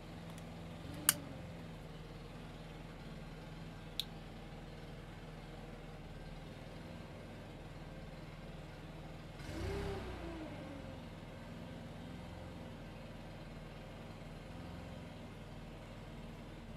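Two sharp clicks of a lighter being struck, the first about a second in and the louder, the second about four seconds in, over a steady low hum of a small engine running. About ten seconds in there is a brief swell of rushing noise.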